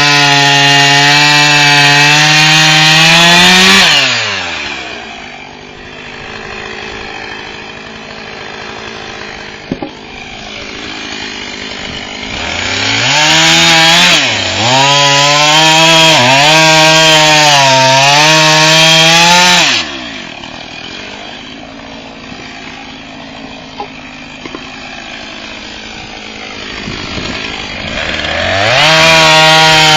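Husqvarna 450 e-series two-stroke chainsaw revved to a high, loud pitch three times, dropping back to a lower idle in between. During the second high spell the pitch dips and wavers, as if under load.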